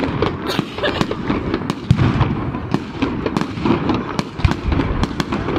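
Aerial firework shells bursting in quick succession: a dense run of bangs and crackles, with heavier booms about two seconds in and again late on.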